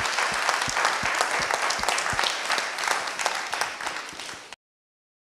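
Audience applauding a panel at the close of its talk, a dense patter of clapping that thins out toward the end and then cuts to silence about four and a half seconds in.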